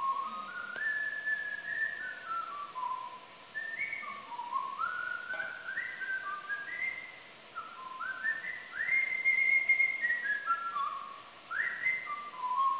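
A person whistling a slow, wandering melody of held notes, many of them sliding up into pitch, played back from a recording.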